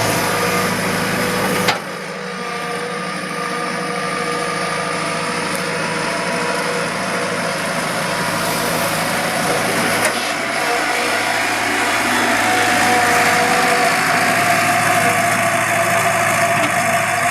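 Excavator's diesel engine running steadily, with one sharp knock about two seconds in. The engine grows somewhat louder over the second half.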